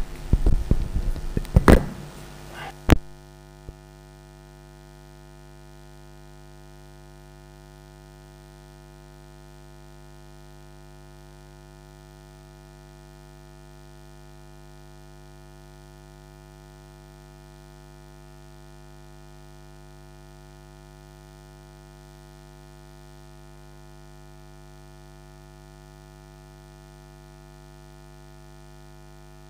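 Knocks and clicks of the sound system's cables and microphone being handled, then about three seconds in the sound cuts abruptly to a steady electrical mains hum with a buzzy stack of overtones that runs on unchanged.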